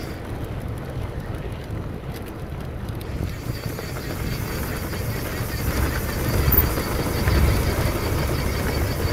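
Wind buffeting the DJI Osmo Action 2's microphone, with the mountain bike's knobby tyres rumbling over a dirt trail. The low rumble grows louder from about six seconds in.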